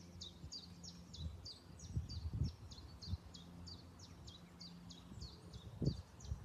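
A small songbird singing a fast series of short, high notes, each falling in pitch, about three a second. A few low thumps sound underneath, around two seconds in and near the end.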